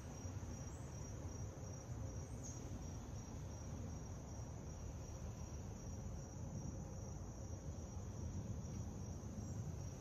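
A steady, high-pitched insect trill, over a louder, uneven low rumble.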